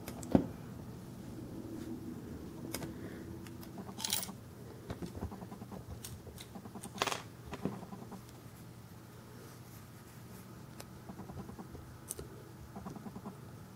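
Handling noises of a diecast scale model truck: scattered sharp clicks and small knocks as it is turned over and its parts are moved by hand, over a faint steady hum.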